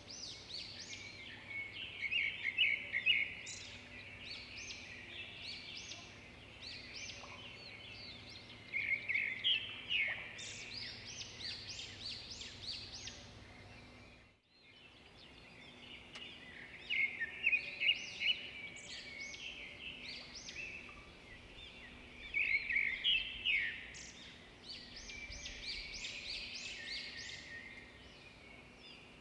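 A chorus of small birds chirping, swelling into louder bursts every few seconds. It cuts out briefly about halfway through and then resumes.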